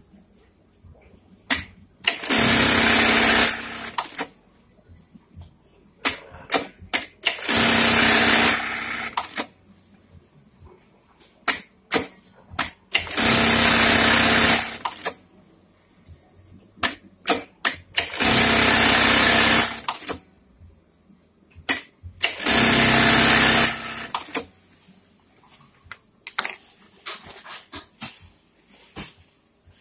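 Juki industrial sewing machine running in five short stitching cycles of about two seconds each, a few seconds apart, with sharp clicks in the gaps between them.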